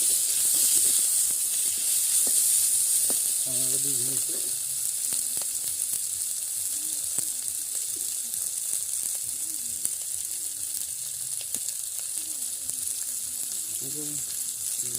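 Food sizzling steadily in hot oil in a pan as the chicken curry cooks, a little louder in the first few seconds, with a few light clicks.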